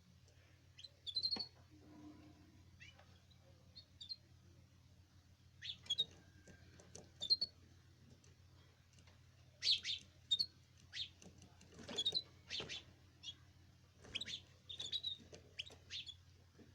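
Caged canaries giving short chirps and call notes, scattered in small bursts, over a faint steady low hum.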